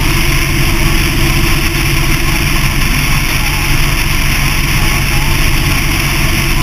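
Motorcycle engine running steadily at highway cruising speed, with constant wind and road noise rushing past the mount-fixed camera.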